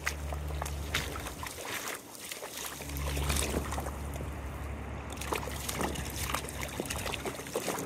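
A dog wading through shallow river water, its paws splashing and sloshing irregularly, over a steady low rumble that swells about three seconds in.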